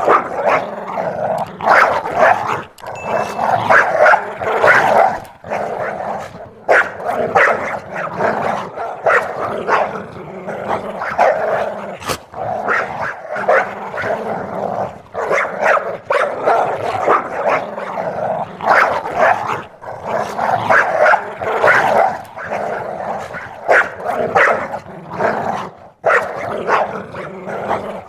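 A dog barking rapidly and growling at a cat, in close bark after bark with hardly a pause.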